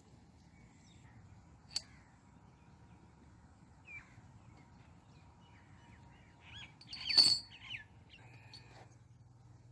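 A small bird chirping in short calls: one at about two seconds, one at four seconds, and a quick loud cluster of chirps around seven seconds in, over a faint low rumble.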